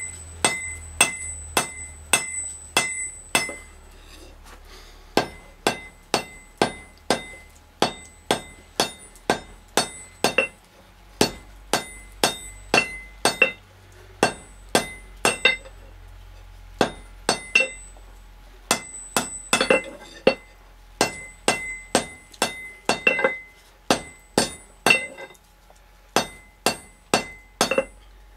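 Hand hammer forging a red-hot bar on an anvil: sharp blows about two a second in runs broken by brief pauses, the early blows leaving a high metallic ring.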